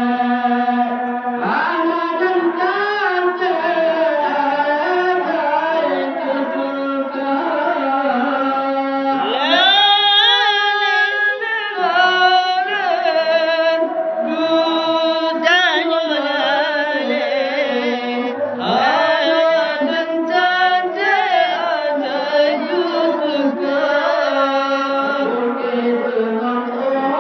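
Music with a singing voice whose pitch slides and wavers continuously over a steady held tone.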